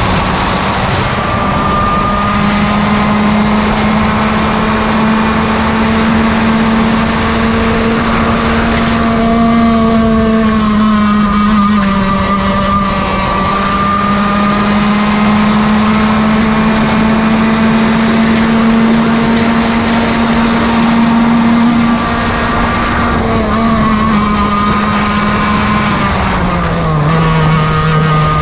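Yamaha KT100 two-stroke kart engine running hard at high revs, its note holding high and steady with small rises and falls. Another kart engine's note slides past about a third of the way through. Near the end the engine note drops in pitch as the revs come down.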